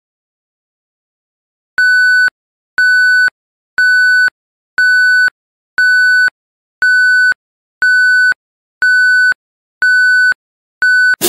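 Countdown timer sound effect: ten short electronic beeps of one high tone, evenly spaced about one a second, starting about two seconds in. A cymbal crash cuts in on the last beep at the very end, marking time up.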